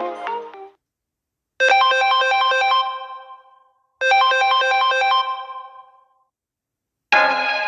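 Samsung Galaxy A30 ringtones played in turn. One melody ends, then a short ringtone phrase of ringing, fading notes plays twice with a gap between, as a ringtone loops. Another, busier ringtone starts near the end.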